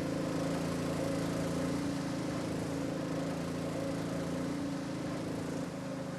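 Small boat's engine running at a steady, even speed, with a low hum, over a hiss of moving water.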